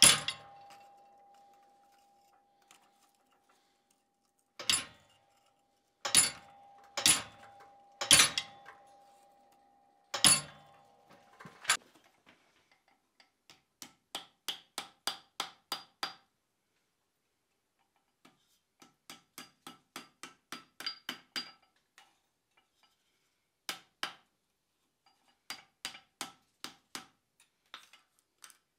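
Hand hammer striking a top tool down onto hot steel plate: about seven heavy blows in the first twelve seconds, each leaving a ringing tone. Then runs of quick, lighter hammer taps, about four a second, on the hot steel over a stake tool set in the anvil.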